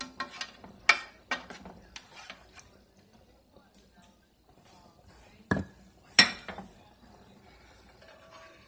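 Metal spoon and spatula clinking and scraping against a Cuisinart nonstick skillet: a quick run of clinks in the first two or three seconds, then two louder knocks a little past halfway as the pan is handled.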